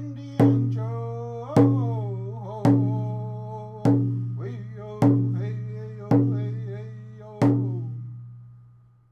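Music with a slow beat: a drum hit about once a second, each followed by a held, ringing tone. It fades away after the last hit, near the end.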